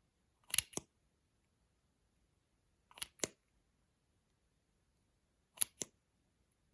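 Pairs of short, sharp clicks, two in quick succession, repeating about every two and a half seconds with quiet between.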